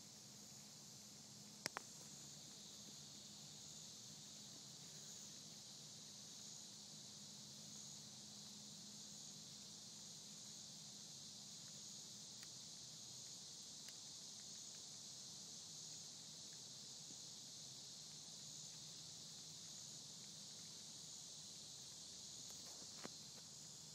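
Faint, steady, high-pitched chorus of insects, with a couple of brief clicks, one near the start and one near the end.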